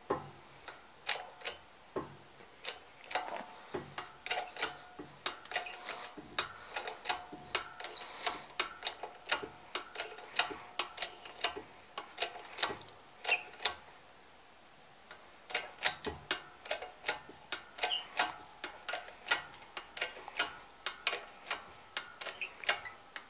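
A shop press being worked to push the crankshaft out of a snug bearing in an opposed-twin engine block: a run of sharp clicks, about two to three a second, with faint squeaks under load and a short pause about two-thirds of the way through.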